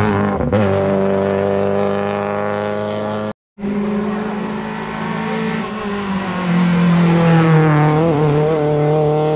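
Rally car engine running hard at high revs, its note held fairly steady, breaking off abruptly for a moment about a third of the way in, then dipping lower and climbing again near the end.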